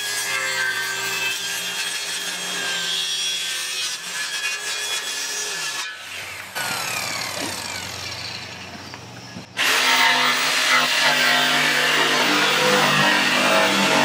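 DeWalt circular saw cutting through a sheet of plywood. The sound breaks off briefly about six seconds in, then grows louder and denser from about ten seconds on.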